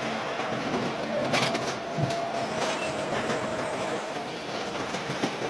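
Car assembly line machinery: a steady rumbling hum of conveyors and equipment with a faint steady whine, and a couple of sharp metallic clanks in the first two seconds.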